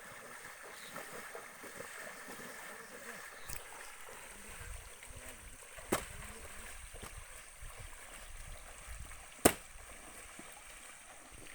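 Steady wash of moving water, with two sharp knocks about six and nine and a half seconds in.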